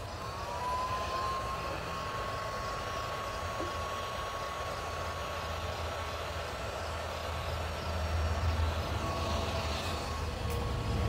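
Electric heat gun running, its fan blowing hot air over wet epoxy resin to push the white pigment into lacing. It makes a steady rushing noise with a motor whine that rises in pitch over the first second as it spins up, then holds.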